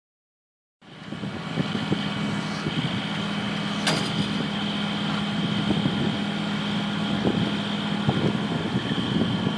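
A heavy machine's engine running steadily, starting about a second in, with a steady high whine over it and a single sharp click near four seconds.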